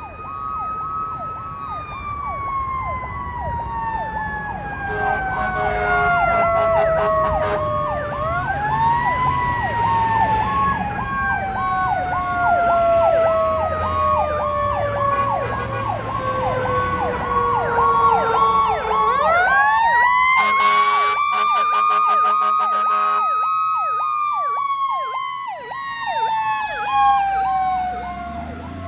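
Fire rescue truck sirens. A Federal Q mechanical siren winds up and coasts down in long, slow glides, over an electronic siren on a fast-repeating Powercall tone. Air horn blasts come in about five seconds in and again about twenty seconds in.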